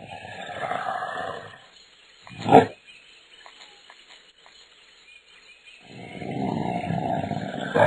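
Cartoon creature growls, twice, each a rough rumbling roar, with a short, loud, sharp sound in between.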